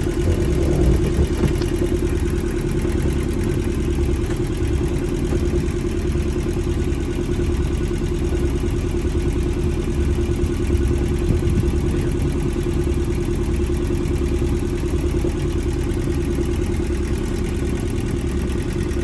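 A sailing boat's engine running steadily at a constant speed, an even hum with a low rumble underneath.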